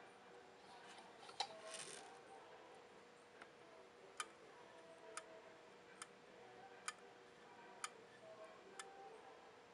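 Small metal clicks from a handmade automaton pendant's spring mechanism as its pull chain is worked, the figure's tiny hammer arm tapping. There is one louder click with some handling rustle near the start, then six clicks about a second apart.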